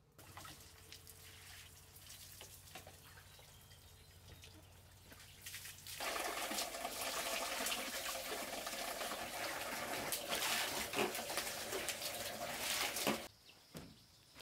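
Water splashing in a plastic basin as something is washed by hand, quieter at first and much louder from about six seconds in, with many small splashes and knocks; it cuts off suddenly near the end.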